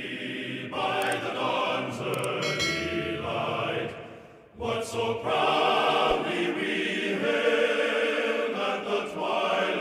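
A choir singing, with the music dropping out briefly about four and a half seconds in before it resumes.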